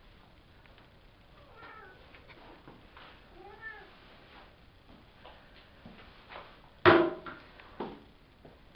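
Five-week-old Savannah kittens mewing: two faint, arching mews in the first few seconds, then a loud, sharp cry about seven seconds in and a second, shorter one a moment later.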